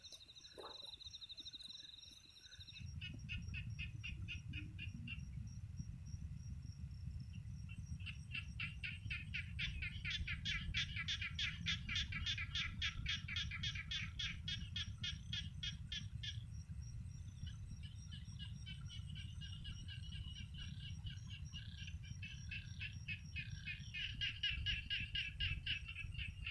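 Night chorus of insects and frogs: a steady high trill for the first couple of seconds, then rapid pulsing calls that swell and fade, over a low rumble.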